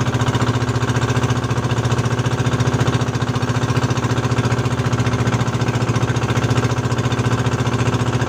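Small outrigger boat's engine running steadily with a fast, even pulsing beat.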